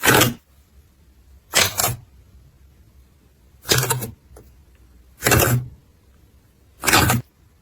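Slime being squished, in five short separate squishes spaced about one and a half to two seconds apart.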